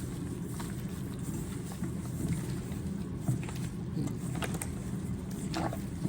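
Steady low background hum, with a few faint soft handling sounds in the second half from gloved hands rubbing dry seasoning into raw chicken thighs.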